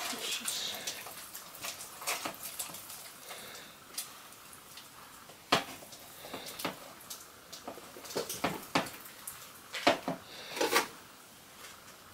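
Corn dog batter being mixed by hand in a bowl: a utensil clinks and scrapes irregularly against the bowl, with louder knocks every few seconds.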